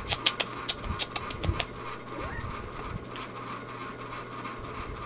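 Electric fan running with a steady mechanical hum, which sounds to its owner like the fan is dying. A run of irregular sharp clicks comes in the first second and a half.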